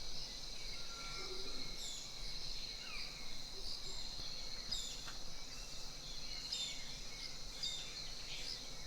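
Tropical forest at dawn: a steady high insect drone with scattered short bird chirps and whistles over it, some of them falling in pitch.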